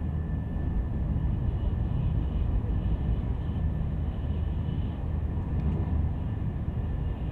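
Train running at speed, heard from inside the carriage: a steady low rumble with a faint steady whine above it.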